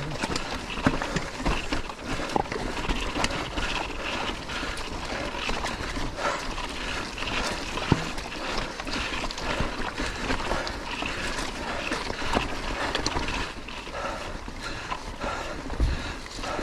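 Mountain bike climbing a rough, stony trail: tyres crunching over loose rock and the bike rattling with many small knocks, along with the rider's hard breathing.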